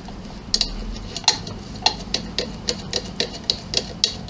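A run of small sharp clicks and taps, about three to four a second after the first half second, as the dies and snap parts of a hand snap press for KAM snaps are handled and fitted into the press.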